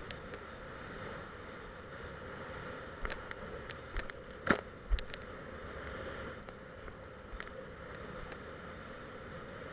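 A small boat running through choppy sea: a steady muffled rush of water and wind, with a few sharp knocks and splashes as the hull meets waves, the loudest about four and a half seconds in.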